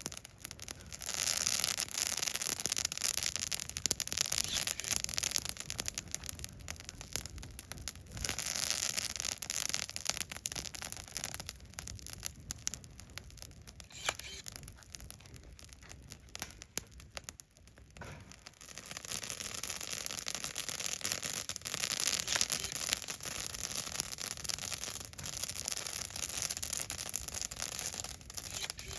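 Wood fire burning in a Solo Stove Yukon fire pit, a hiss with many small crackles and pops, swelling and easing: louder for the first several seconds, quieter through the middle, and louder again near the end.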